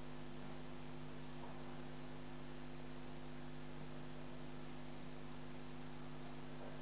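Steady electrical hum with a constant hiss underneath.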